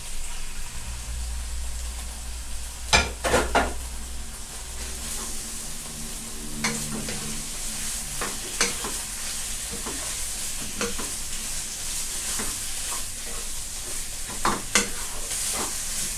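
Raw sliced pork belly sizzling in hot oil and curry paste in a granite-coated nonstick pan, stirred with a wooden spatula that scrapes and knocks against the pan every second or two. The loudest knocks are a quick cluster about three seconds in.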